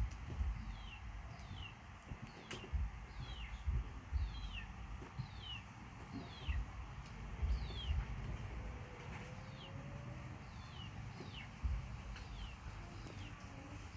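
A bird calling over and over, short high chirps that slide downward, about one every half second to second, pausing briefly in the middle. Low thumps come and go underneath and are the loudest sounds.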